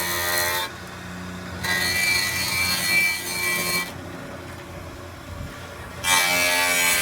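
Sawmill planer's 20-inch spiral cutter head, driven by a 5 hp motor, planing black walnut: a steady motor hum under a loud cutting hiss. The cutting sound drops away twice, under a second in and again from about four to six seconds, leaving a quieter hum, then bites back in.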